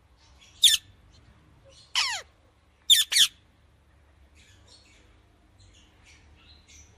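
Parrot squawking: four loud calls, one under a second in, a longer one falling in pitch about two seconds in, and a quick pair around three seconds in, followed by faint soft chirps.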